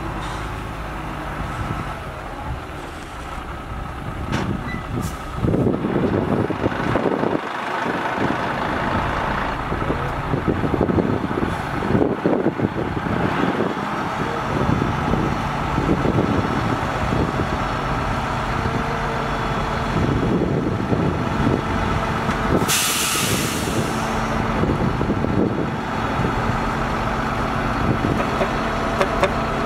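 Diesel engine of a loaded 25.5-tonne dump truck running as the truck reverses, louder and rougher for several seconds while it moves. About three quarters of the way through comes a sharp hiss of air from the air brakes. The engine then holds a steady note as the hydraulic hoist raises the loaded tipper bed.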